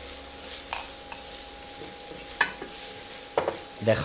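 Chopped onion and garlic sizzling in hot oil in a nonstick frying pan while a spoon stirs and scrapes through them. The spoon knocks sharply against the pan a few times.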